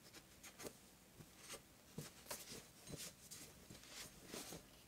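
Faint, irregular rubbing and scuffing of a microfiber cloth wiping a Glock 17's slide, with light clicks as the slide is handled in the cloth.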